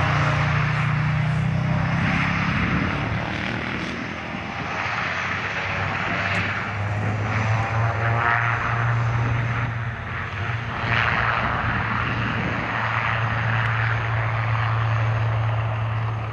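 CASA C-295M transport's twin turboprop engines and propellers running as the aircraft rolls along the runway: a loud, steady propeller hum over engine rush. The hum drops in pitch about halfway through.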